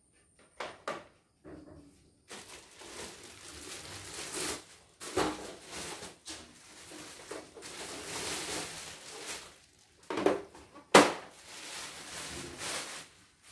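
Plastic wrapping rustling and crinkling as an embroidery machine's embroidery unit is unwrapped, with a few light clicks at first and two sharp knocks near the end, the loudest sounds.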